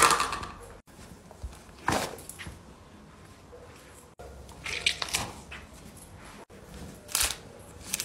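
A few short knocks and squishes, spaced a second or more apart, over faint room noise, with abrupt cuts between them.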